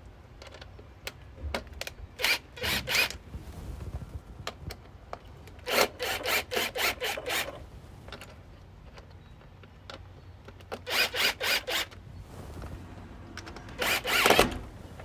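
A bike U-lock mounting bracket being fitted to the bike by hand: four short runs of quick rasping strokes, the longest about 6 to 7 seconds in, with quieter handling noise between them.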